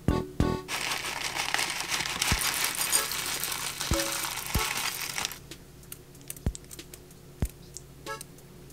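Granola shaken out of a bag into a glass bowl of yogurt: a dense dry rustle and crinkle of the bag and the pouring clusters, lasting about four seconds and stopping abruptly, followed by a few light taps.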